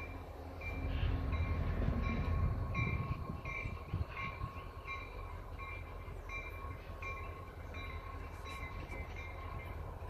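EMD GP40 and SW1500 diesel-electric locomotives running as they move slowly through a yard, with a low engine rumble that swells about a second in and then eases. A locomotive bell rings steadily, about once every half second.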